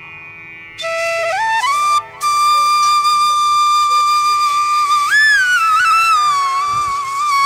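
Background music: a flute melody of long held notes that slide from one pitch to the next, coming in about a second in after a soft start.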